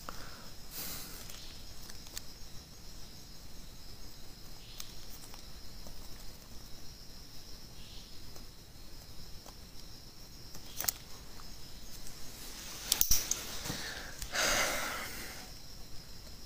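Faint steady high-pitched insect trill in the background, with a few light clicks around thirteen seconds in and a short sniff about a second later.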